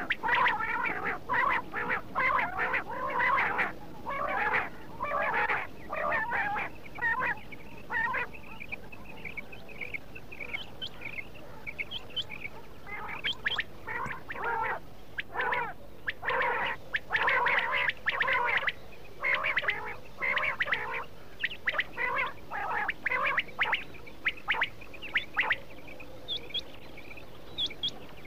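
Quail calling in repeated bursts of rapid short notes, each burst lasting about a second, with short gaps between them and a few thin, higher chirps about ten seconds in and near the end.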